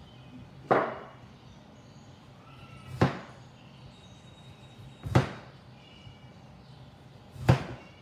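A kitchen knife cutting down through a raw potato onto a plastic chopping board: four single, sharp strokes about two seconds apart.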